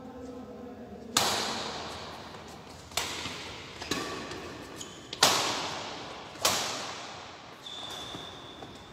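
Badminton rally: rackets strike a shuttlecock five times, sharp hits one to two seconds apart, each ringing on in the echo of a large sports hall. A faint steady high whine starts near the end.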